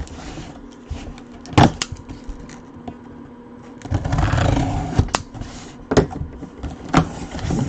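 Cardboard box being opened and handled: a few sharp knocks and taps, with a louder stretch of scraping and rustling about four seconds in.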